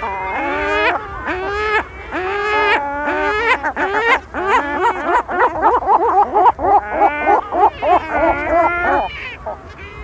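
A single lesser black-backed gull giving its 'choking' call at high intensity, the call of the gull's territorial choking display: a long series of repeated pitched notes that quicken to about four or five a second in the middle, then stop about a second before the end.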